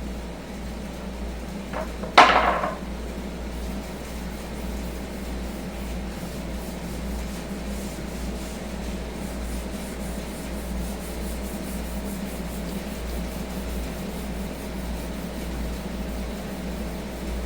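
A hand rubs mineral oil into a cutting board: a steady soft rubbing, with one sharp knock about two seconds in. A steady kitchen appliance hum runs underneath.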